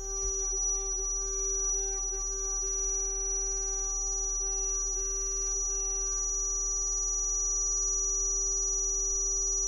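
Brushless motor on a VESC controller whining steadily as high-frequency injection drives its windings at 12 volts during braking. A quite loud, shrill high tone sits over a lower tone, with no change in pitch.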